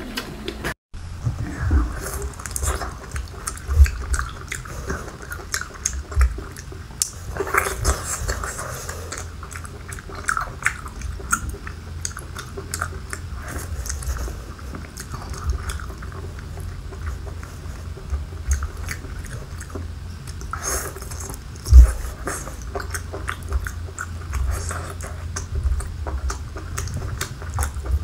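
Close-up chewing and biting of braised whole octopus: many small wet mouth clicks over soft low thumps, with one sharper loud knock about three-quarters of the way through.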